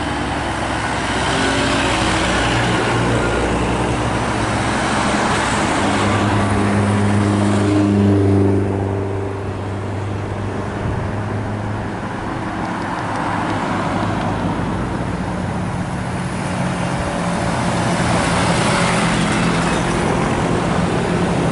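Tour bus diesel engine pulling as the bus climbs through a bend toward the listener, with road traffic noise. It is loudest about eight seconds in, drops off briefly, then builds again near the end as the bus comes closer.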